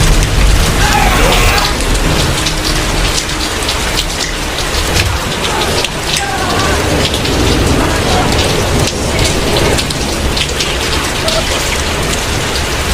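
Heavy rain pouring down steadily, with low rumbles of thunder underneath.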